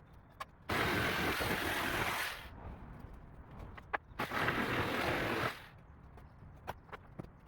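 Work on a wooden crate: two harsh, noisy bursts of about a second and a half each, with scattered sharp clicks and knocks between them.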